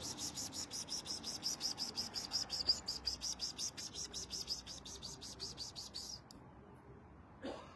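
Rapid, high-pitched chirping repeated evenly about six times a second, stopping abruptly about six seconds in.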